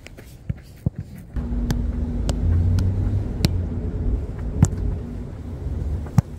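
Several sharp touches of football boots on a football and artificial turf. About a second and a half in, a steady low engine rumble with a faint hum sets in and becomes the loudest sound.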